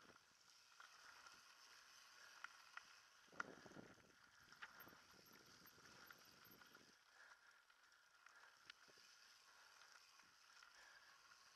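Faint riding noise from a mountain bike descending a rough dirt trail, with scattered clicks and knocks as it goes over bumps. The sharpest knock comes about three and a half seconds in, followed by a brief rumble.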